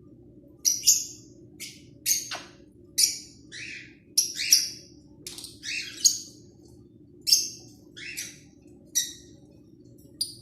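Pet parrot giving about fifteen short, sharp, high-pitched calls at irregular intervals, some in quick pairs.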